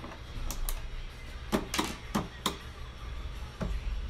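Several sharp clicks and knocks, about six in the first two and a half seconds, from hand tools and a flat-panel TV's plastic back cover being handled, over a steady low hum.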